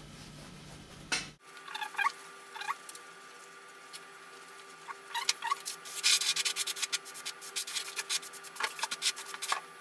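Microfiber cloth wiping the bare LCD screen of a MacBook Pro: a couple of short squeaks, then from about five seconds in a run of quick rubbing strokes.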